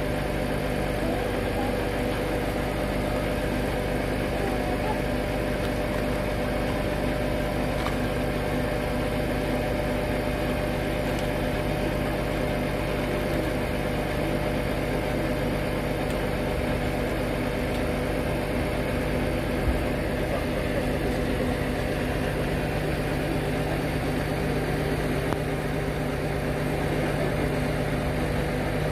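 A large vehicle engine idling steadily, its speed unchanging.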